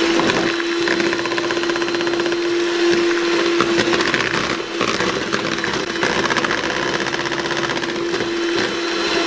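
Electric hand mixer running at one steady speed, a constant motor hum and whir as its beaters churn a thick cake batter.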